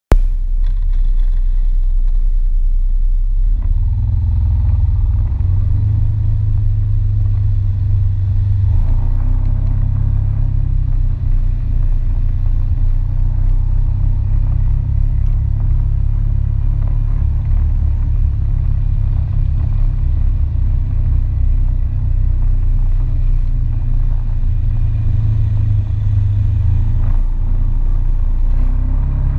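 All-terrain vehicle's engine running close to the camera on a dirt trail: a steady low drone that rises in pitch about three and a half seconds in as the vehicle picks up speed, and dips briefly near the end.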